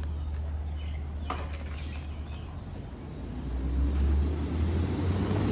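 Low rumble of a motor vehicle going by, growing louder about three and a half seconds in.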